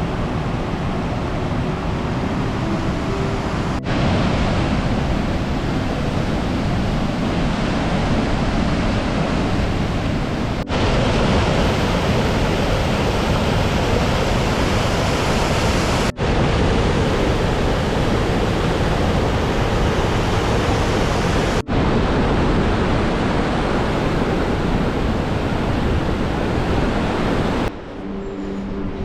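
Steady, loud rush of water pouring over Richmond Falls on the River Swale, in several takes joined by brief breaks. Music starts about a second before the end.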